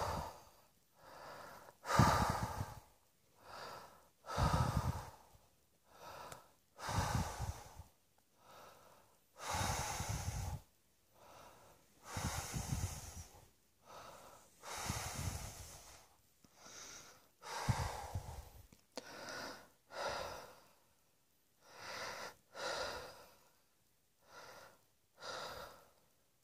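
A person breathing heavily, with about twenty audible breaths in and out, one every second or so, and short silences between them.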